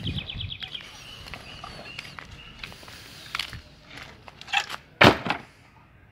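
A few sharp knocks and clatters, the loudest about five seconds in.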